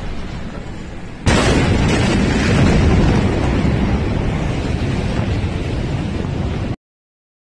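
The Beirut port explosion of stored ammonium nitrate. A steady rushing noise, then about a second in a sudden loud blast that carries on as a long rumble, slowly fading and cut off abruptly near the end.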